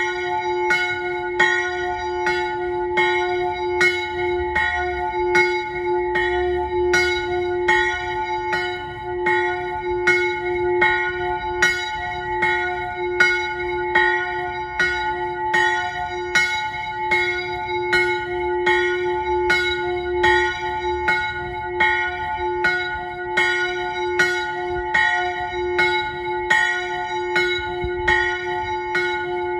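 A single chapel bell ringing in its small roof turret, struck at a steady, even pace, each stroke ringing on into the next.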